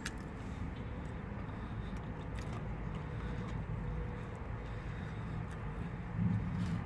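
A person eating: a fork clicking at the mouth and quiet chewing, over a steady low vehicle rumble heard from inside a car. A short low thump comes about six seconds in.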